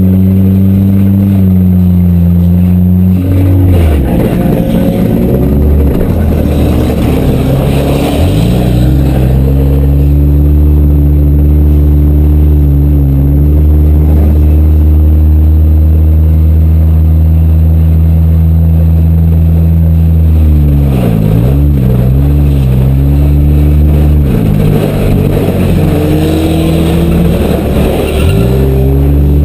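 Demolition derby car engines running hard and loud, revving, the pitch dipping and climbing back again several times.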